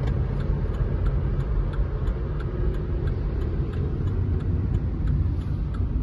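A car driving, heard from inside the cabin: a steady low rumble of engine and tyre noise, with a light, regular ticking over it.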